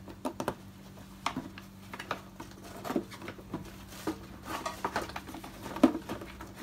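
Plastic air filter housing of an Audi 100 C3 being handled and worked free by hand: irregular clicks, knocks and rattles of plastic against metal parts in the engine bay, with a louder knock near the end.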